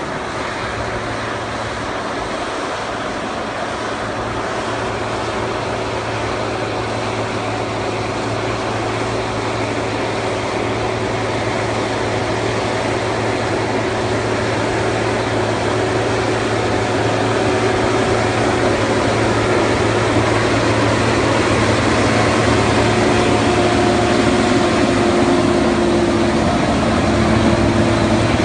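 Fendt tractor's diesel engine working under steady load as it pulls a tillage implement, a steady even hum that grows gradually louder as the tractor draws near.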